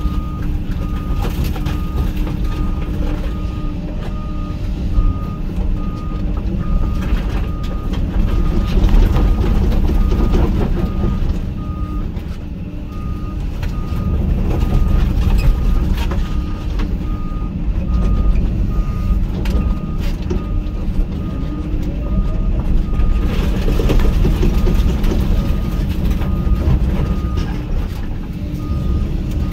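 Hyundai HX220AL excavator's diesel engine running under load while its alarm beeps steadily, about two beeps a second, with scattered clanks and crunches of steel grain-bin sheeting.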